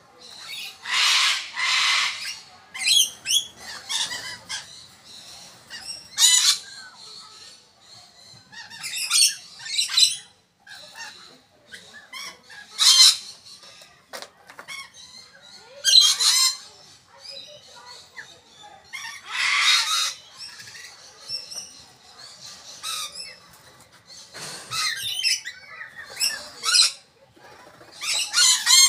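Major Mitchell's cockatoo making a series of harsh, raspy calls spaced a few seconds apart, some about a second long and others short, while it eats a lettuce leaf.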